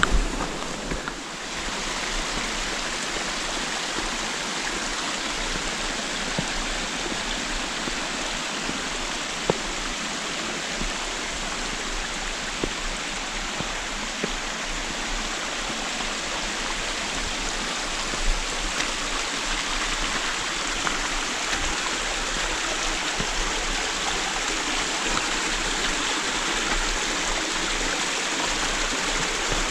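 Steady rush of a mountain stream running over rock, with a few faint knocks.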